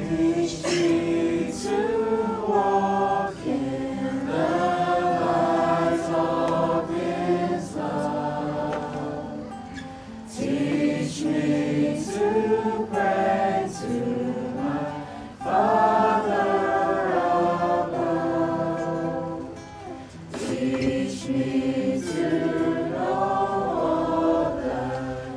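A group of voices singing a hymn-like song together in harmony, with acoustic guitar accompaniment, in phrases separated by short pauses.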